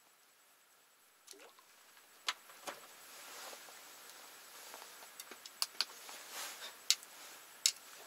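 Scattered sharp clicks and light rustling from someone moving about and handling gear in the dark. It starts sparse and gets busier from about three seconds in, with several louder clicks near the end.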